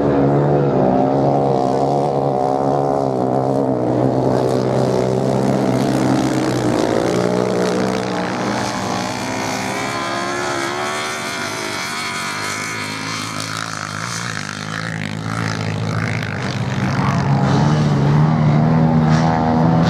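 Several motorcycle engines racing on a beach sand track, revving up and down as the bikes accelerate and pass. The engine noise drops a little in the middle and rises again near the end.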